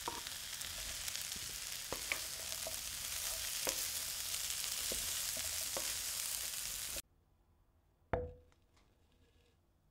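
Food frying in oil in a pan, with a steady sizzle and occasional knocks of a utensil stirring it. The sizzle cuts off suddenly about seven seconds in, and a single knock with a short ring follows about a second later.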